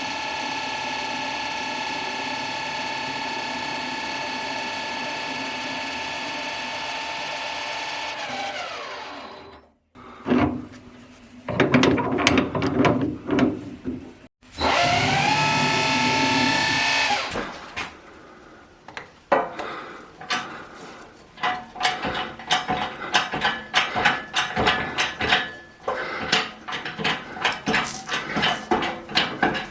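An electric machine-tool motor runs steadily, then spins down with falling pitch. After a short break it runs again briefly and spins down once more. A long series of sharp metallic clicks and knocks follows.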